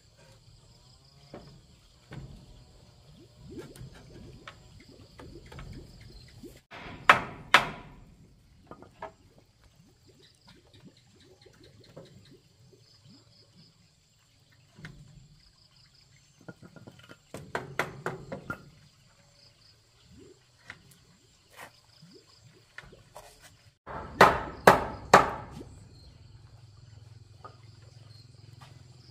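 Sharp knocks on the wooden balcony railing as it is fitted, in three short runs of strikes, the last the loudest, over a steady high drone of insects.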